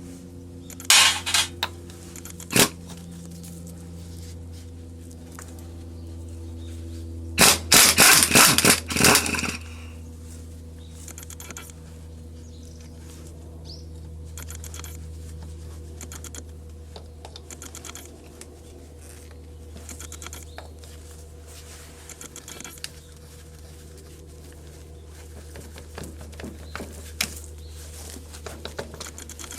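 Metal parts and hand tools clinking and knocking during disassembly of a tractor front axle, with a quick run of loud metallic knocks lasting about two seconds a quarter of the way through, and lighter clicks after, over a steady low hum.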